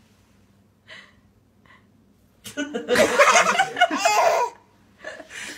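A quiet stretch with a couple of faint short sounds, then a burst of hearty laughter about halfway through lasting around two seconds, and a shorter laugh near the end.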